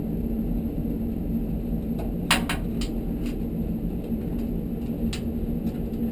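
A few light, sharp metal clicks, the loudest about two seconds in, over a steady low hum: a screwdriver working a small screw out of a tankless water heater's burner assembly.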